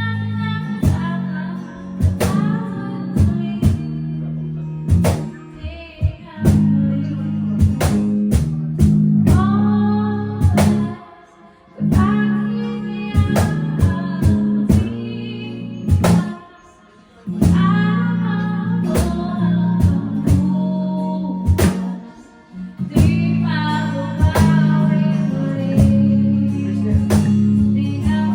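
A rock band playing: a singer over electric guitar, bass and drums. The playing stops briefly a few times and comes back in.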